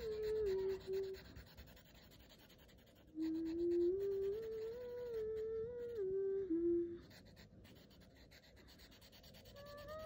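A slow, simple wordless tune in short phrases of stepped notes, with pauses between the phrases. In the gaps a marker rubs faintly on paper.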